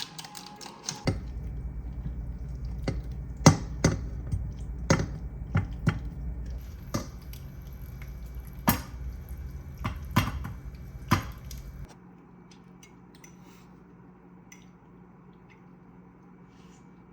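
Kitchen clatter: sharp clinks and knocks of dishes and utensils over a steady low hum that cuts off suddenly near the end, leaving only a few faint ticks.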